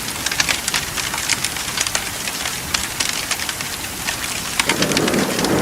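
Steady rain hissing, mixed with the sharp irregular crackles of a fire. Near the end a lower, fuller rushing sound comes up and the whole grows louder.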